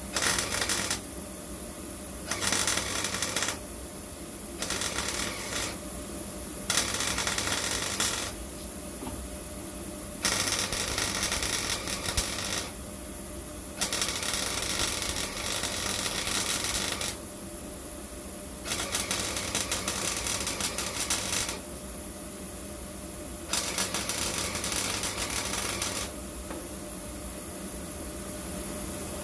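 Welding in a series of about eight crackling bursts, each one to three seconds long, with short pauses between them, over a steady low hum.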